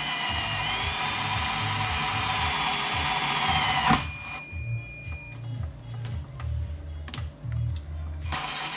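Cordless drill boring quarter-inch pilot holes through a carbon-fibre side skirt. The motor whine rises slightly about a second in and cuts off suddenly about four seconds in, followed by a few light clicks. The drill starts again near the end.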